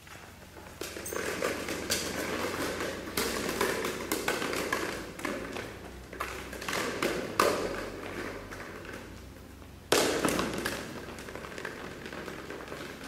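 Red rubber ball slammed and bouncing repeatedly on the hard floor of a large hall, each bounce echoing, with footsteps between; the loudest bounce comes about ten seconds in.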